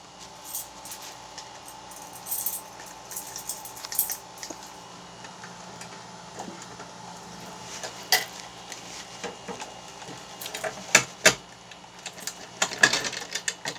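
A bunch of keys jangling, with scattered sharp metallic clicks and knocks, several of them close together near the end.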